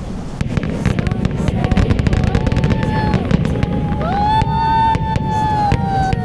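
Fireworks going off in quick succession, a dense run of bangs and crackling. About four seconds in, a high held tone rises in over the bursts.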